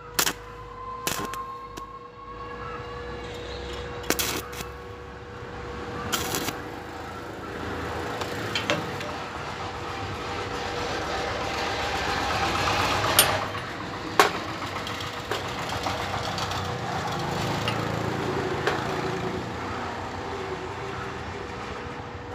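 Stick-welding on a steel pipe joint: a steady machine hum, sharp arc-strike clicks early on, then a crackling arc that builds and fades, with two sharp cracks near the middle.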